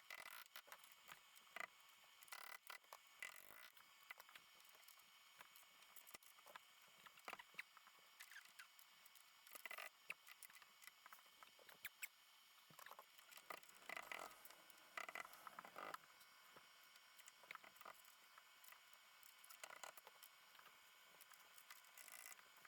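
Near silence with faint, scattered clicks and short scratchy rustles.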